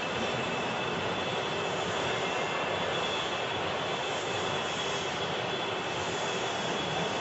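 Steady machine noise: an even rushing hum with two faint, steady high whines on top.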